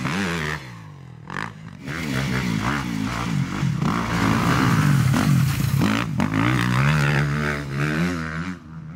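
A 250cc four-stroke motocross bike's engine revving up and down as it is ridden, the pitch repeatedly climbing and dropping with throttle and gear changes. It is quieter for the first second or so, then fades out near the end.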